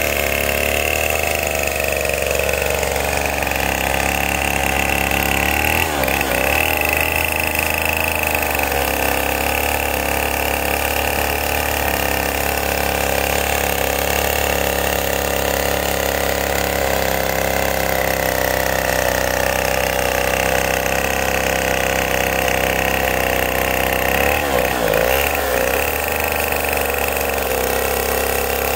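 Two-stroke petrol chainsaw running steadily under load as it rips lengthwise along a log. The engine pitch wavers briefly twice, about six seconds in and again near the end.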